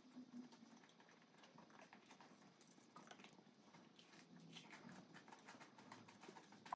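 Very faint crisp crackles and small clicks from a breaded fish stick being broken apart and eaten, heard just above the room tone.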